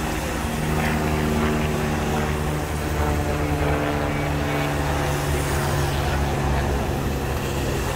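Race-convoy cars and a motorbike passing on a wet road, their tyres hissing, under the steady drone of an aircraft overhead.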